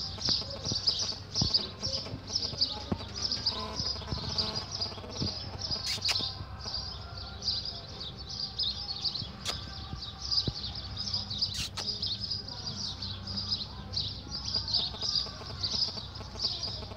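Many small birds chirping and twittering continuously, with a low rumble of handling or wind noise beneath and a couple of sharp clicks near the middle.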